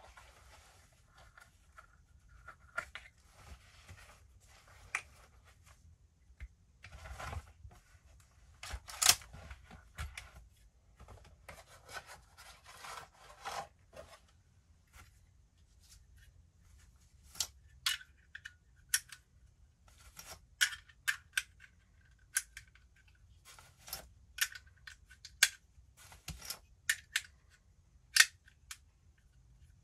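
Rustling and handling of a soft rifle case, with one loud sharp click about nine seconds in. From about halfway, a run of about fifteen short metallic clicks at an uneven pace: .308 cartridges being pushed one by one into a Browning BAR magazine.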